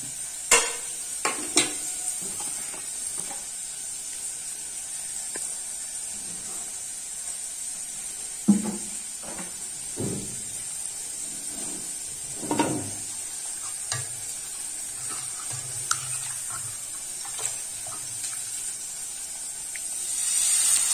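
A steel ladle clinks against a steel pot of rice-flour batter and an iron tawa is handled on a gas stove, over a steady hiss. Near the end, ghavan batter hits the hot tawa and the sizzle gets louder.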